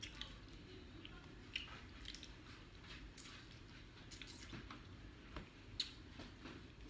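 Faint chewing and wet mouth smacks from people eating a seafood boil with their hands, with a few short, sharp smacks scattered through.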